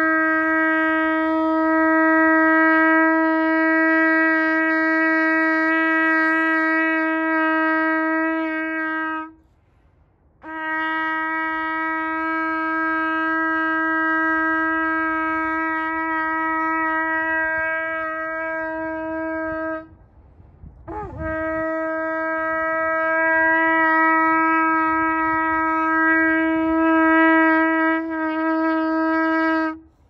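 A long, twisted Yemenite-style shofar blown in three long, steady blasts of about nine seconds each, with a second's pause between them. The third blast starts with a brief waver in pitch.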